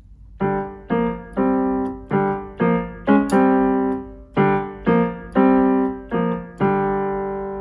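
A simple melody picked out one note at a time on a piano keyboard, about two notes a second, each note ringing and fading. The last note is held longer near the end.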